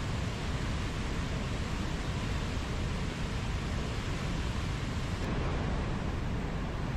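Steady, even rushing of outdoor nature ambience, deepest in the low end, with no distinct events; the treble changes slightly about five seconds in.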